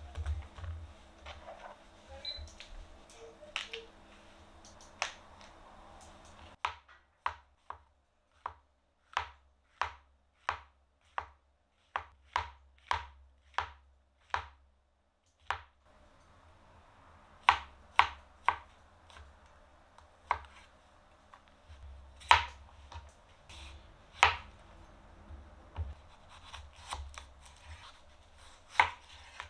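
Chef's knife slicing mushrooms on a cutting board, the blade knocking the board with each cut at about two cuts a second. In the second half it cuts a cucumber with fewer, louder strokes.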